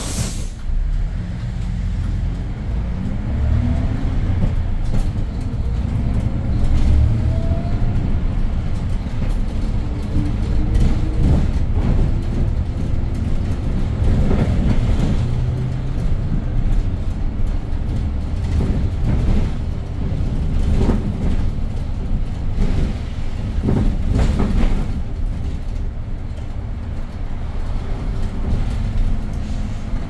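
Hyundai New Super Aerocity city bus with its C6AF CNG engine running and pulling away, heard from inside the cabin. The engine pitch climbs twice in the first several seconds as it accelerates, then settles into a steady low rumble while driving. A few brief sharper noises come past the middle.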